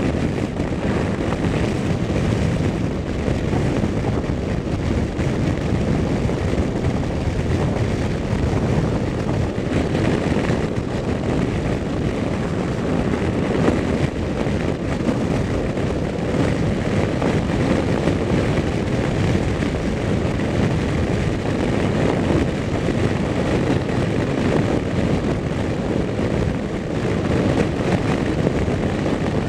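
Heavy trucks running along a road: a steady low rumble with no clear rise or fall of a single pass.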